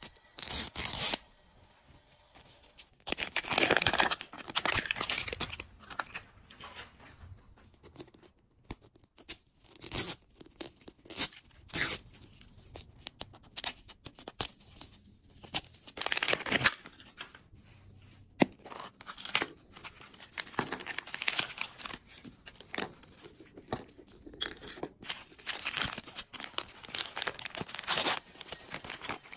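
Plastic toy packaging peeled and torn open by hand: the outer wrap of a Miniverse capsule ball stripped off, then a pink plastic packet torn open and crinkled. It comes in repeated bursts of tearing and rustling with short pauses between.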